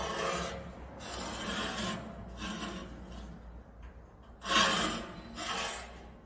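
Metal adjustable angle square sliding and scraping on the saw's galvanized steel work table and side rail, in several short scrapes, the loudest about four and a half seconds in.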